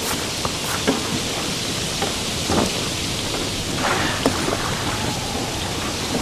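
A steady rushing noise with a few light knocks and clatters scattered through it.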